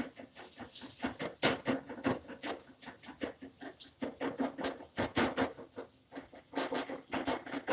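A cooking utensil scraping and knocking against a frying pan in quick, irregular strokes as ground beef is stirred and broken up.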